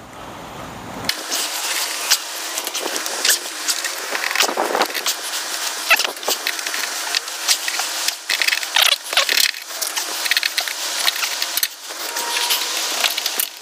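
Pliers clicking and scraping on metal as the old twisted cowl lacing nails are gripped and levered out one after another: irregular sharp clicks and scrapes, thin-sounding with no low end from about a second in.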